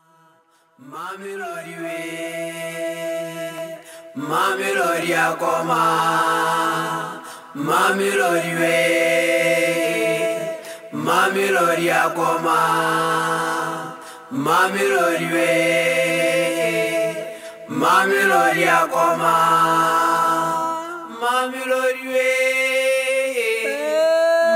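A cappella chant: singing of a repeated phrase, starting about a second in and returning roughly every three and a half seconds, each phrase opening with a rising swoop into held notes.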